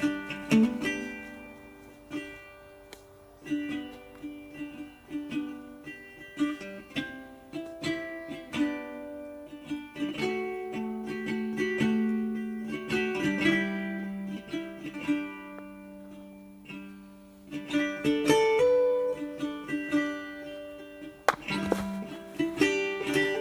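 Background music of gently plucked ukulele or guitar notes.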